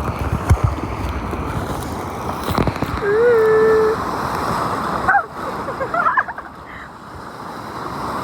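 Seawater sloshing and waves splashing around the phone, with knocks from handling. About three seconds in, a person's voice holds a single note for about a second, the loudest sound here; a few short vocal sounds follow a couple of seconds later.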